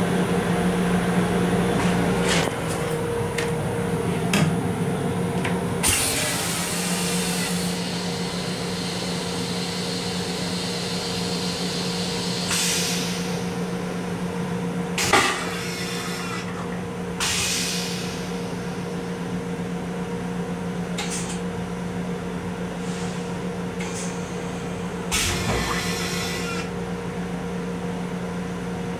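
Steady hum of a Long Island Rail Road M7 electric railcar, heard inside its small restroom. Over it come several short rushing hisses, and a sharp clunk about halfway through as the stainless-steel toilet is flushed and its bowl empties.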